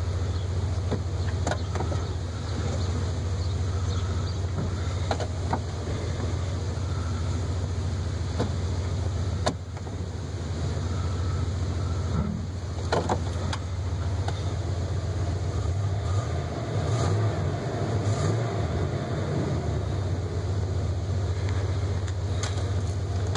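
Ford 351 Windsor V8 idling steadily in Park, heard from inside the van's cab, with a few light clicks along the way.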